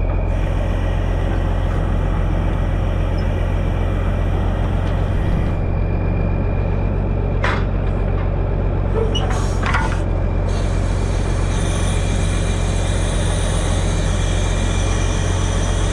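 Kenworth log truck's diesel engine running steadily under a heavy load of logs. Two short hisses come about halfway through.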